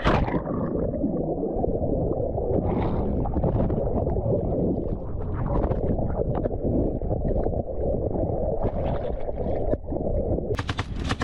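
Steady low rumble and rush of a motorboat under way on the river, with crackling buffeting on the microphone. About ten seconds in, the sound changes to a brighter hiss with sharp clicks.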